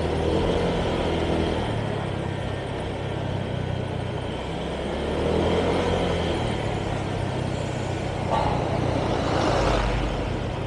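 Motorcycle engine running on the move, its pitch stepping up and down with the throttle every few seconds, over steady wind and road noise.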